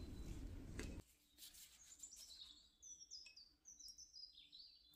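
Small songbirds chirping faintly, a run of short, quick, falling high notes repeated over several seconds. Before the birds, about a second of steady noise that cuts off abruptly.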